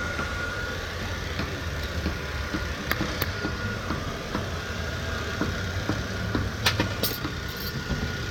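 A steady low motor hum with a faint high steady tone above it, and a few sharp clicks or knocks: a pair about three seconds in and another pair near the end.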